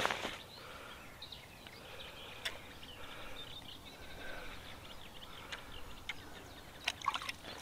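Birds chirping and singing in the background, with a few sharp knocks or clicks, one right at the start, one about two and a half seconds in and a couple near the end.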